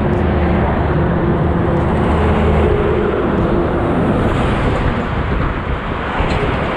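Heavy goods trucks passing close on a highway: engine drone and tyre noise in a steady, loud stream of traffic.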